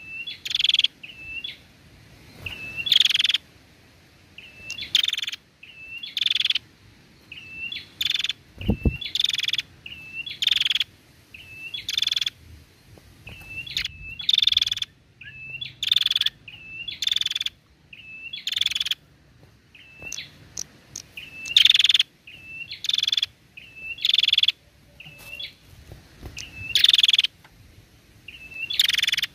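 Female prenjak, a tailorbird, calling over and over: each call a short, hooked chirp followed by a louder, harsh buzzy note, repeated about every one and a half to two seconds. A single low thump about nine seconds in.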